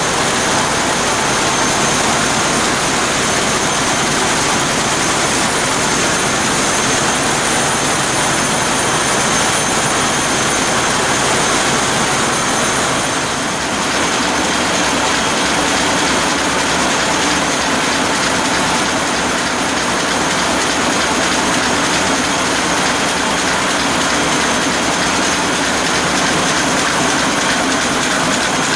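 Burmeister & Wain seven-cylinder two-stroke marine diesel (DM742 VT2 BF90) running steadily: a loud, unbroken engine-room din, heard close to the engine's valve gear.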